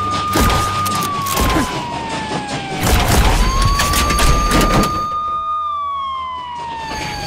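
Police car siren sound effect wailing in a slow cycle: the pitch sweeps up, holds, then glides down, twice through. A loud rumble with knocks and clatter comes in the middle, along with sparks grinding under the train's wheels.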